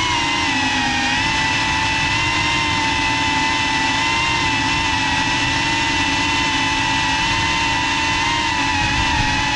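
FPV quadcopter's motors and propellers whining steadily at close range, the pitch wavering slightly up and down as the drone flies.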